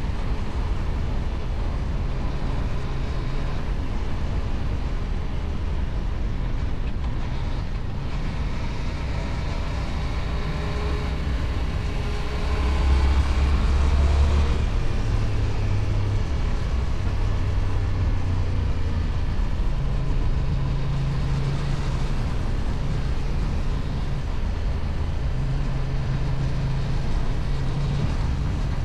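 Kove 625X Adventure motorcycle engine running through its stock exhaust while being ridden, with rushing noise underneath. The engine note steps between steady pitches as the speed changes and gets louder for about two seconds a little before halfway.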